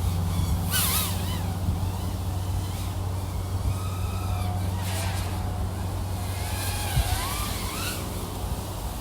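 3.5-inch FPV quadcopter's brushless motors and propellers whirring, the whine rising and falling in pitch as the throttle changes, over a steady low hum, with short rushing surges about a second in and again about five seconds in.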